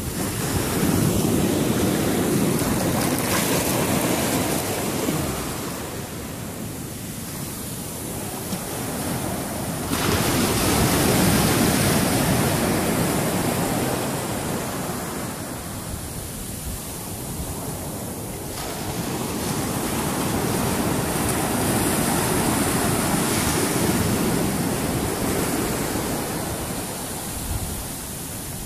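Ocean surf washing up on the shore, the rush of water swelling and easing in three long surges.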